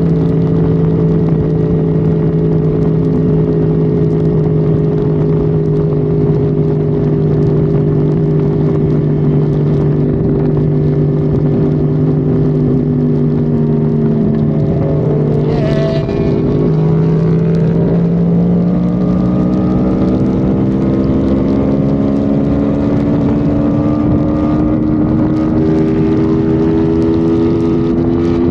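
Engine running hard at high road speed, a steady drone over road and wind noise. Just past the middle the pitch dips briefly with a short whoosh, then climbs steadily to the end as the vehicle accelerates.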